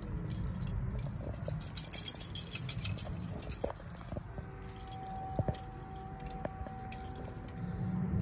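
Light rattling and jingling with scattered sharp clicks over a low rumble, and a faint steady tone in the second half.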